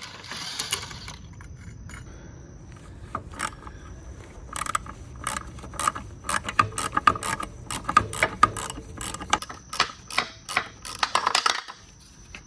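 Hand ratchet wrench clicking in quick runs of strokes while undoing the 17 mm caliper mounting bracket bolts, starting a few seconds in.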